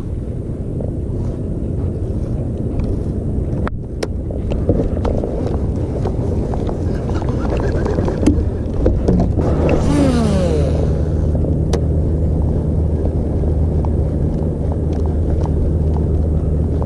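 Low rumbling noise like wind on the microphone, with scattered small clicks and knocks. About ten seconds in comes a brief hiss with a falling whine, and then a steady low engine-like drone sets in.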